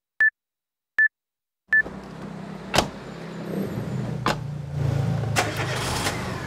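Three short high electronic beeps, about three-quarters of a second apart. Then a car's engine starts a low steady hum, with several sharp clicks.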